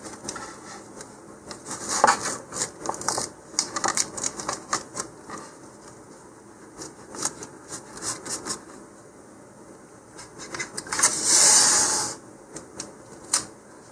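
Masking tape being wrapped and pressed around a rocket's motor retainer: scattered small crackles and clicks, then a loud rasp of tape ripping for about a second, about eleven seconds in.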